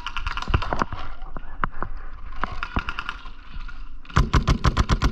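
Paintball markers firing: scattered single shots and short strings, then a fast steady string of about ten shots a second near the end.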